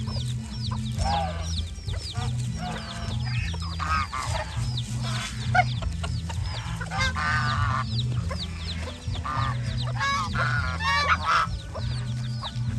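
Geese honking with other farmyard fowl calling, one short call after another, over background music with a steady low bass line.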